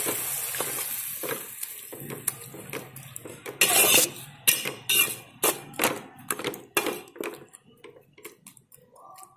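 Flat metal spatula scraping and stirring wet masala in a metal kadai: a dozen or so scrapes and clinks against the pan, thinning out near the end. Over the first couple of seconds the sizzle from the splash of water just added to the hot oil dies away.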